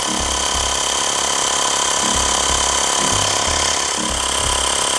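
Xiaomi portable electric air pump running with a steady whine, pumping air through its hose into a car tyre while the pressure climbs.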